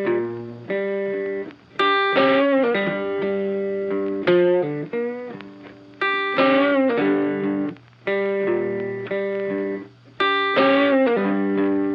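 Background music: funky guitar chords played with an effects unit, a new chord struck about every two seconds and left to ring and fade.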